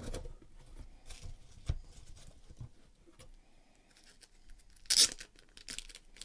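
Cardboard box and a sleeved trading card being handled: scattered soft rustles, scrapes and light knocks, with one brief, louder plastic rustle about five seconds in.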